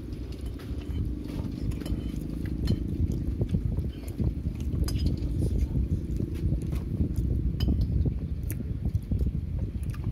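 Eating sounds close to the microphone: chewing and mouth noises with scattered light clinks of fingers and a spoon against china plates, over a steady low rumble.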